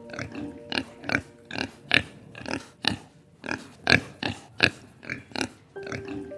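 An animal making a run of short, sharp calls, about two or three a second and irregularly spaced.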